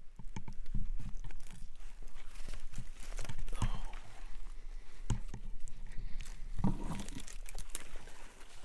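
Footsteps crunching through dry fallen leaves and brushing past twigs and saplings: an irregular run of crunches and rustles.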